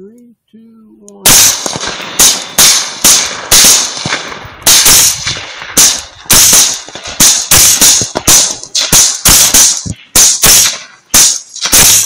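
Rifle gunfire: a rapid, uneven string of about twenty sharp shots, roughly two a second, starting about a second in.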